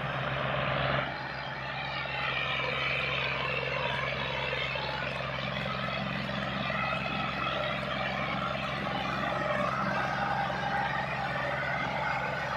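Diesel engines of Massey Ferguson 260 and 240 tractors working hard under load as they pull a heavily loaded trolley in tandem: a steady, loud drone whose level dips briefly about a second in.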